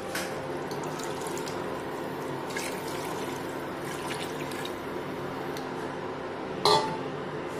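Water poured from a stainless-steel bowl into a pot of fried rice and chicken, adding the cooking water for a pulao. A few light clinks, and one loud metal clink near the end.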